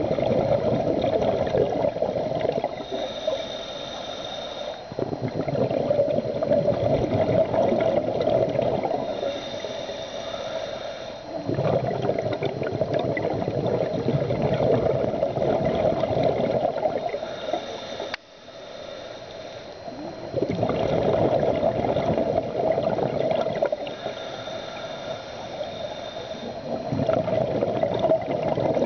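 Scuba regulator breathing heard underwater: slow cycles of a hissing inhale followed by a longer bubbling exhale, repeating about every six seconds.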